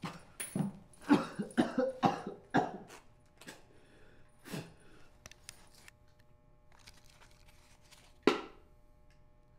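A man coughing and gasping: a quick run of short coughs in the first three seconds, another a little later, and one loud cough near the end.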